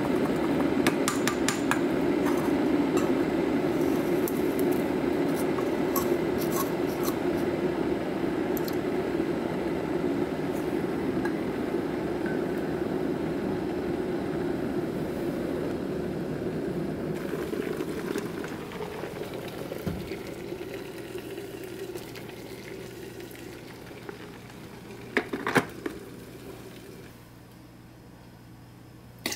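Light clinks and taps of a Flair espresso maker's metal portafilter and plastic dosing funnel being handled on the counter, with a couple of louder knocks near the end. A steady rushing noise under them fades away over the second half.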